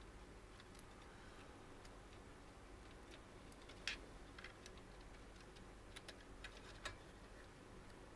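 Near silence with a few faint, scattered small clicks and taps, the loudest about four seconds in and again near seven seconds: the sound of handling PC fan and RGB cables and their plastic connectors.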